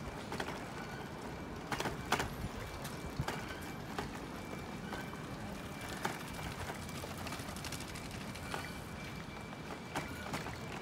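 Bicycles rolling over brick paving: a steady rolling noise broken by scattered small clicks and knocks from the bikes jolting over the paving joints.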